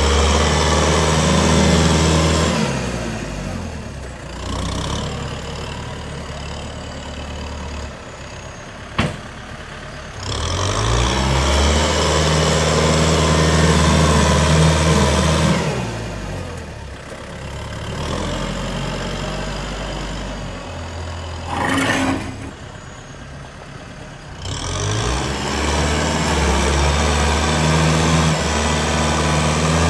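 Heavy diesel machinery engines, a bulldozer and dump trucks, working under load: the engine sound swells loud three times and eases back between. A single sharp click about nine seconds in, and a brief louder burst about two-thirds of the way through.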